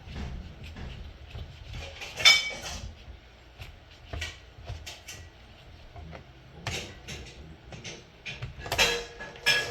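Scattered clicks and knocks of a Timex alarm clock and tools being handled while it is taken apart, the sharpest knock about two seconds in and a cluster of clatter near the end.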